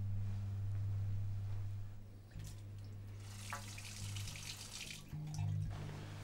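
A tap running into a sink for about two and a half seconds, starting about three seconds in and shutting off suddenly, over a low steady hum.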